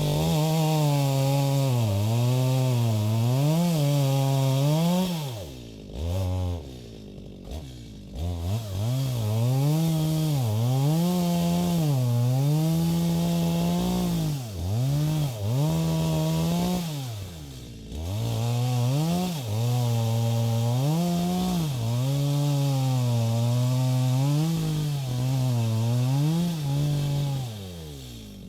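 Stihl MS250 two-stroke chainsaw cutting sil-koroi wood. The engine runs at high revs, its pitch dipping and recovering every second or so as the chain loads in the cut. It drops back to idle briefly about six seconds in, again past the middle, and at the end.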